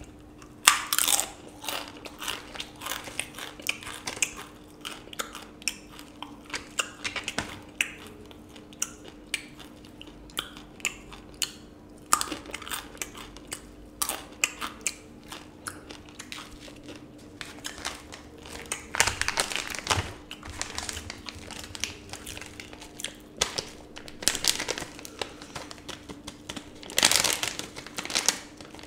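Jolo chip, a thin Carolina Reaper chip, being bitten and chewed close to the microphone: a long run of sharp, crisp crunches. Near the end a foil chip packet crinkles as it is handled.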